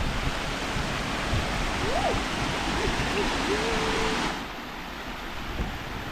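Rushing river water, a steady hiss that drops off suddenly about four seconds in.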